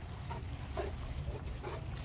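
Cane Corso dogs making short vocal sounds as they meet, about four in quick succession, over a steady low rumble.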